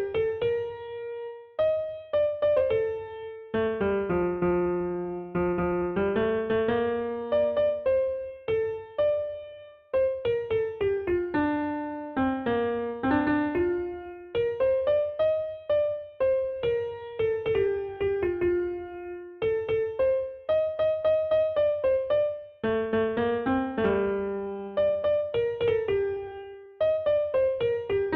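Background music: a melody of struck notes on an electric piano or keyboard.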